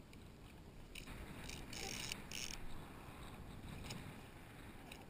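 Water sloshing and splashing against a kayak's plastic hull, with a few short splashes about one to two and a half seconds in, over a faint low rumble.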